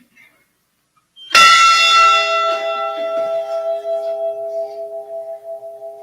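A large memorial bell struck once about a second in, ringing on with a slowly pulsing hum and fading gradually. It is a single toll for one lost crew member whose name has just been read.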